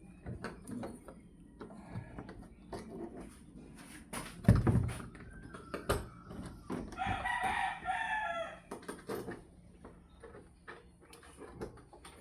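A rooster crows once, about seven seconds in, a call of about two seconds. Around it are scattered clicks and knocks of a door knob and its screws being fitted, with one loud knock about halfway through.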